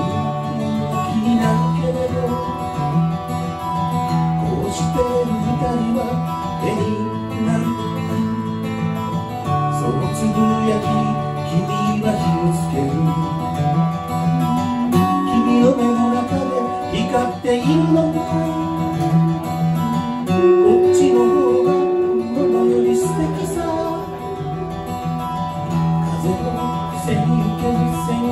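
Acoustic guitar strummed and picked in a folk song, with long held melody notes above it.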